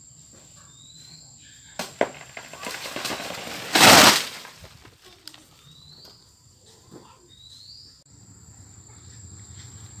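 A banana plant being felled: two sharp machete chops at its trunk, then the stem tears and the plant crashes down through its leaves, the crash the loudest sound, about four seconds in. A bird gives short rising chirps a few times.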